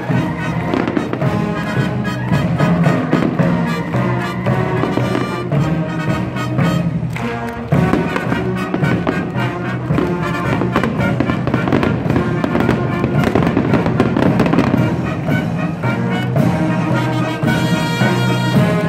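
A fireworks salute bursting and crackling in quick succession over military brass band music.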